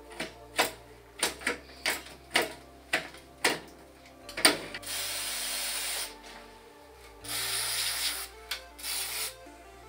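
A series of irregular sharp ratcheting clicks from work on an old bicycle's crank and chain, then several short bursts of aerosol spray hissing in the second half, over background music.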